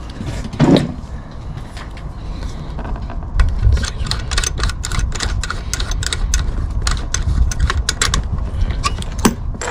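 Rapid, irregular relay clicking from an HF transceiver's antenna tuning as a newly switched-in Rybakov antenna is matched, several clicks a second from about three seconds in, over a low rumble.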